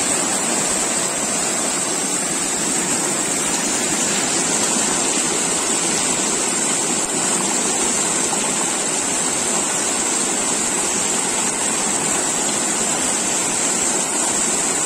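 Fast, muddy river water rushing steadily past a hand net held in the current; a loud, even rush with no let-up.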